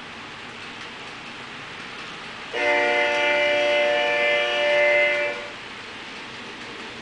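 Diesel locomotive air horn sounding one long chord-like blast, about three seconds long, starting about two and a half seconds in, over a steady hiss of the train rolling.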